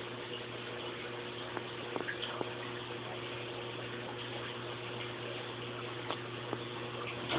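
Water circulating in a 25-gallon saltwater aquarium: a steady rush of moving water over a constant low pump hum, with a few small pops about two seconds in and again near the end.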